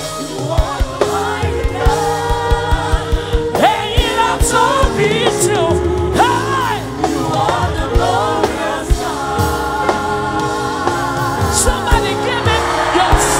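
Live gospel worship music: singing with choir voices over a band with steady drum hits.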